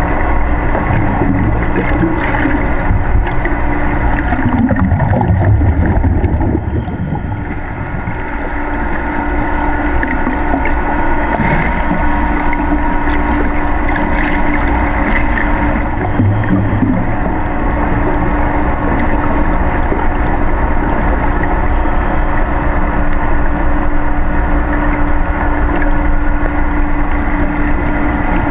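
Underwater sound inside a large aquarium tank: a steady machine hum with several constant tones over a low rumble, from the tank's pumps and filtration carried through the water, with a few falling sweeps about five to seven seconds in.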